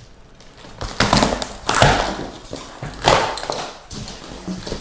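Cardboard shipping box being cut and opened: three loud tearing, scraping sounds about a second apart as the tape is slit and the flaps are pulled back.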